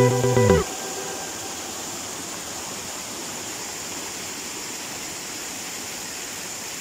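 Background guitar music stops about half a second in, leaving the steady rush of a mountain stream splashing down a small rocky cascade.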